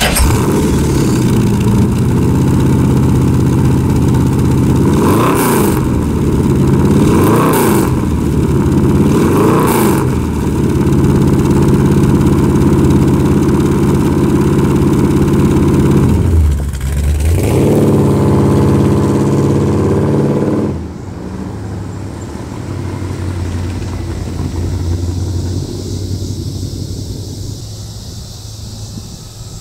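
The 1967 Dodge Coronet 440's engine runs through its headers and dual exhaust, idling and blipped three times about five, seven and a half and ten seconds in, with another rev around sixteen seconds. About twenty seconds in, the sound drops to a quieter, more distant engine.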